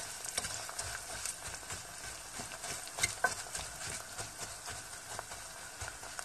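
Basmati rice frying in hot sunflower oil in a stainless steel pot, crackling and sizzling softly while a wooden spoon stirs the grains, with a few louder clicks of the spoon.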